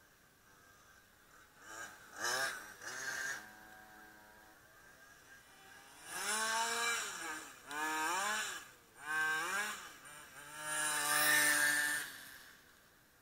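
Quarter-scale radio-controlled Formula 1 model car's motor revving up and cutting back again and again as it drives the circuit. It is a series of rising whines that break off, several seconds of them, the loudest near the end.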